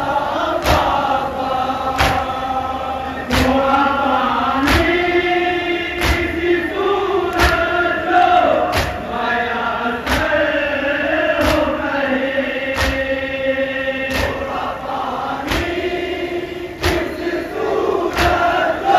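A group of men chanting a noha, a Shia mourning lament, in unison. Their sustained sung lines are punctuated by sharp, even beats of sina-zani matam, hands striking chests, about three every four seconds.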